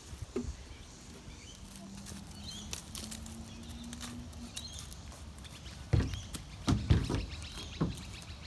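A handful of sharp knocks or thumps, bunched about six to eight seconds in, after a faint low steady hum.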